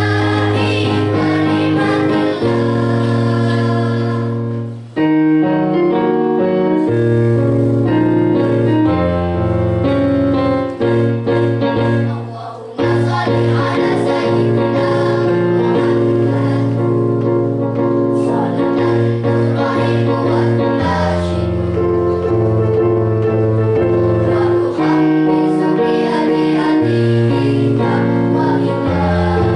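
Children's choir singing with keyboard accompaniment, sustained chords and melody. The sound drops briefly about five seconds in and again about twelve seconds in.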